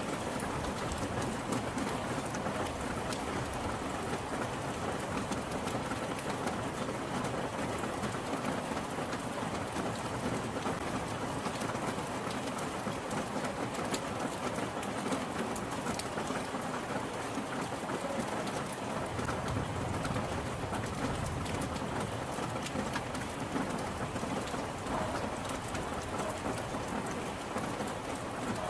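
Steady rain falling on a surface, an even hiss dotted with fine drop ticks. A low rumble swells briefly about two-thirds of the way through.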